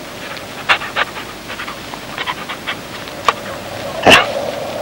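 Search dog panting and snuffling in short breaths at the volunteer it has just found, with one louder, sharp sound about four seconds in.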